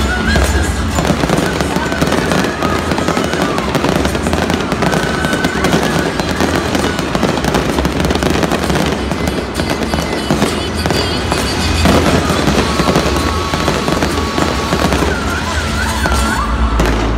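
Fireworks display with aerial shells bursting and crackling in rapid, continuous succession, mixed with Disney theme music.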